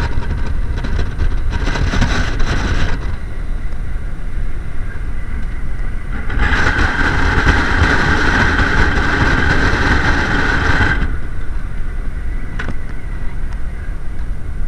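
Strong mountain-top wind buffeting the microphone with a constant heavy rumble. Two louder gusts bring a rushing hiss with a steady whistling tone: a short one about two seconds in and a longer one from about six to eleven seconds in.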